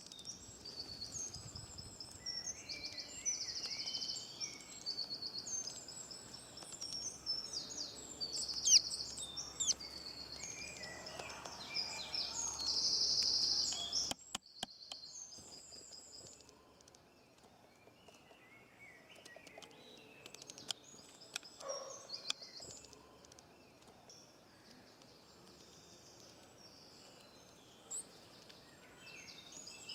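Several songbirds singing and chirping over a soft outdoor background. The birdsong is dense at first, then thins out after a short break about halfway through.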